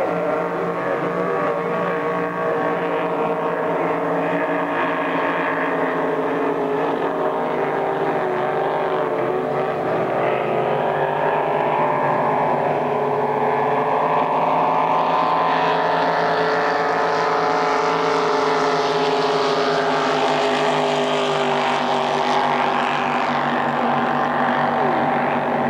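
Several racing powerboats running at speed: a steady engine drone with several pitches at once. It grows brighter and a little louder for several seconds past the middle as boats pass closer, then eases.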